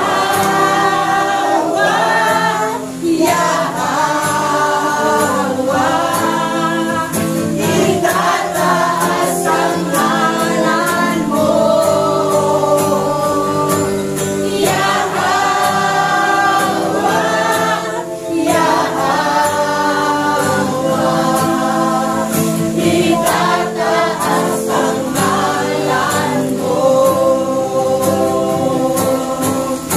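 A congregation singing a Tagalog worship chorus together in unison, hands raised in praise, accompanied by an electronic keyboard. The singing runs on without a break.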